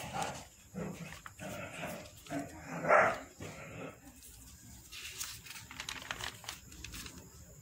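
A few short animal calls, dog-like, in the first half, the loudest about three seconds in. Then crisp rustling and clicking of glossy catalogue pages being handled and turned.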